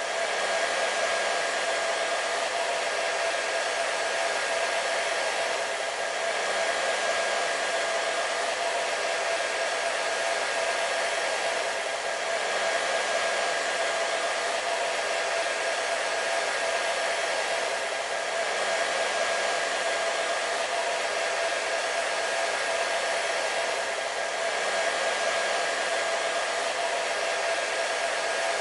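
Hair dryer running steadily: an even airy rush with a steady whine from its motor, swelling slightly about every six seconds.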